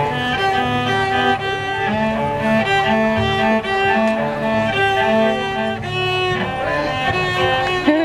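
Solo cello played with a bow: a melody of held notes, one after another.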